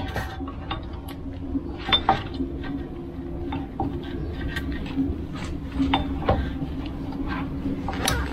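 Irregular small metallic clinks and clicks as a Volvo 940's handbrake shoes and their retaining springs and clips are worked loose by hand, with a low steady hum underneath.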